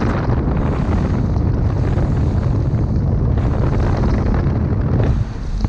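Wind buffeting loudly on the microphone as the boat runs under way, over the rush of the hull through the water.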